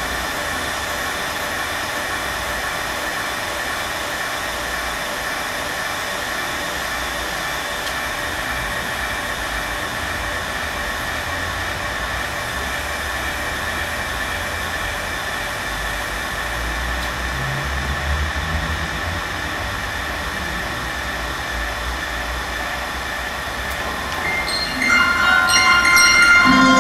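Steady droning soundtrack of noise with several held tones and low rumbles, mechanical like a train. About 24 seconds in, bell-like chiming music comes in over it and gets louder.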